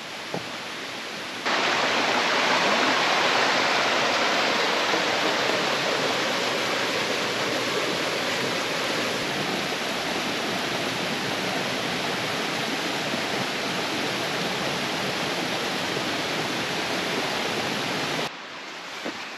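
Running water from a stream, a steady, even rush that cuts in suddenly about a second and a half in and cuts off just before the end.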